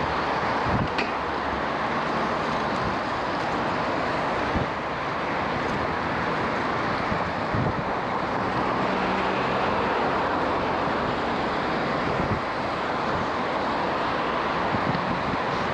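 Wind rushing over the microphone while riding a bicycle in road traffic, with the steady noise of motor traffic underneath and occasional low buffeting thumps.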